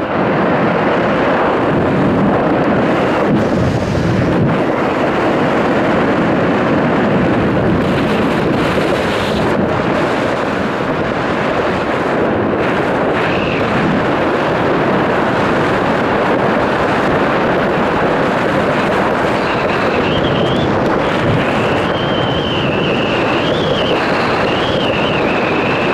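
Steady wind rushing across the microphone. A high, wavering tone joins in over the last several seconds.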